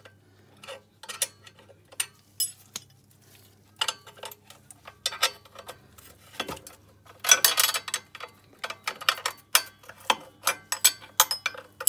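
Steel spanners clicking and clinking on the nuts and bolts of a 125 cc ATV's rear axle mount as the last mounting bolt is loosened: irregular sharp metal clicks, with a quicker run of clicks about seven seconds in.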